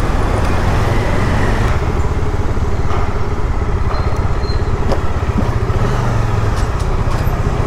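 Motorcycle on the move in road traffic: steady engine and road noise with a heavy low rumble.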